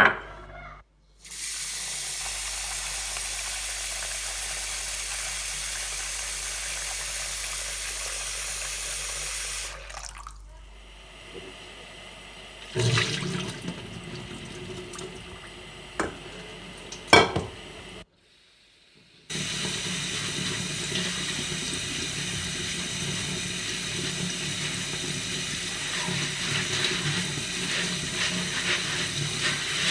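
Kitchen tap running into a sink, a steady rush of water that stops after about ten seconds. A few sharp knocks follow in a quieter stretch, then the tap runs steadily again from about nineteen seconds on.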